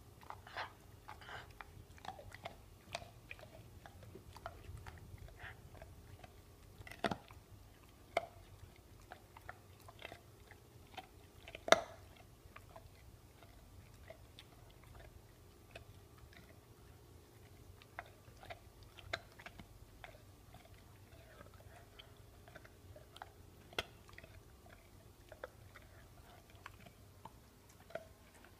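Pit bull chewing and gnawing a bone: irregular sharp crunches and clicks of teeth on bone, with one louder crack about twelve seconds in.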